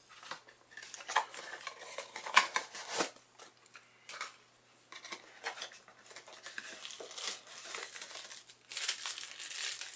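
Hands handling an opened cardboard product box and its small packed parts: irregular light taps, clicks and scrapes, with rustling near the end as a plastic bag of mounts is lifted out.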